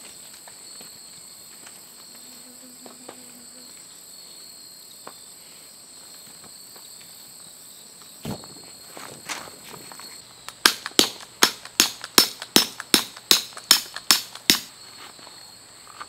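A tent peg being hammered into gravel ground: about a dozen sharp strikes, some three a second, starting past the middle. Steady high insect calls run underneath.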